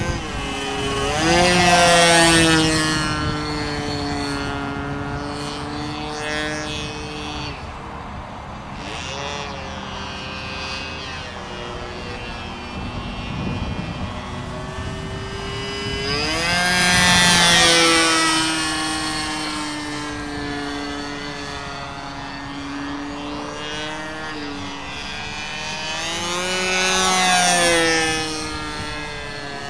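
The OS Max .46 AX two-stroke glow engine of a Great Planes Stinger II radio-controlled airplane buzzing in flight. It passes close three times, about two seconds in, midway and near the end, growing louder each time, with its pitch dropping as it goes by.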